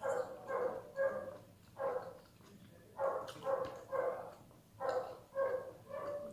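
A dog barking repeatedly: about a dozen short barks in loose groups of two or three.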